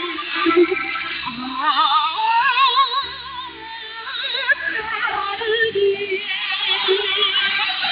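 Song with female singing in strong vibrato over instrumental accompaniment, received over shortwave radio. The sound is narrow and thin, with nothing above about 4 kHz.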